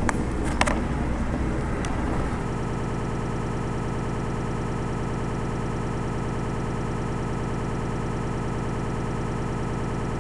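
Bus engine heard from inside the passenger cabin, with rattling and a couple of sharp knocks over the first two seconds. At about two and a half seconds the sound changes abruptly to a steady, evenly pulsing engine drone.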